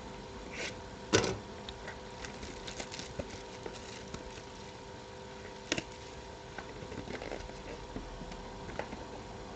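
Scattered clicks, taps and light rustles of cardboard card boxes and packs being handled, with one sharp knock about a second in and another near the middle, over a steady electrical hum.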